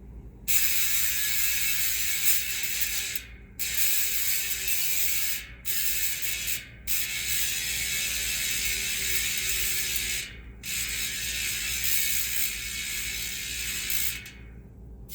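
White Industries XMR rear hub freewheeling: its pawls click over the 48-tooth sawtooth drive ring in a fast, buzzing ratchet. The sound comes in five spins broken by short pauses.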